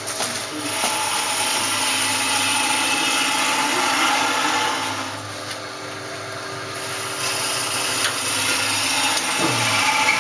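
Wood lathe running with a hand gouge cutting the spinning workpiece: a steady motor hum under the rough, scraping hiss of the cut, which eases off for a moment about halfway through.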